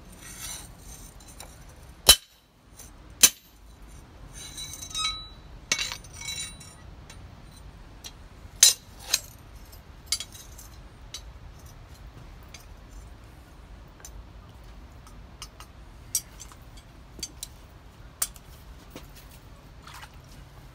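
Hammer blows on a lawnmower-blade cleaver blank lying on a railroad-rail anvil, straightening a bow out of the steel: sharp, irregular metal strikes, some with a brief ring, with lighter clinks and scrapes of metal on metal in between.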